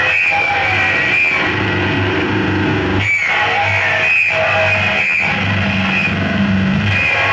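Loud live noise music played through a PA, a steady wall of sound with held low and high droning tones.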